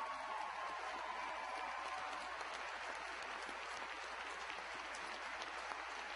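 Audience in an auditorium applauding: dense, steady clapping that eases off slightly toward the end.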